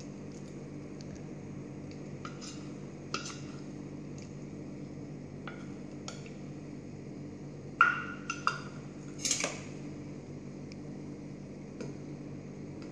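Steel spoon scraping and tapping a small stainless steel bowl and a steel ladle knocking in a stainless steel pot: scattered short metal clinks, the loudest cluster about eight to nine seconds in, over a steady low hum.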